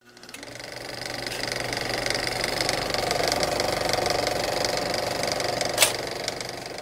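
Motorcycle engine idling with a rapid, even pulse, fading in from silence, with one sharp click about six seconds in.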